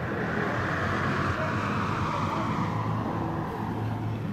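A road vehicle passing by: a rushing sound that fades away over the first few seconds, over a low steady hum.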